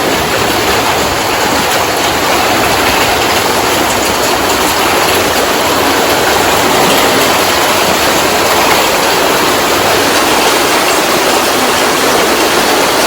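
A steady, loud rush of water in heavy rain, an even hiss without a break.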